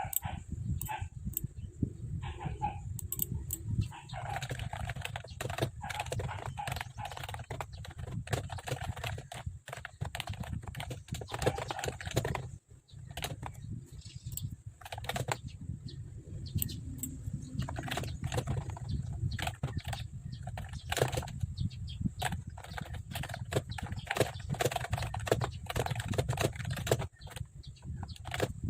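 Typing on a Mofii Sweet S keyboard: a run of quick keystroke clicks that goes on throughout, over a steady low hum, with chickens and other birds calling in the background.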